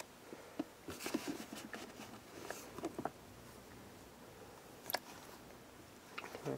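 Faint rustling and crinkling of newspaper and paper towel bedding as a hand lifts hatchling snakes from a plastic tub, with a few light taps and one sharp click about five seconds in.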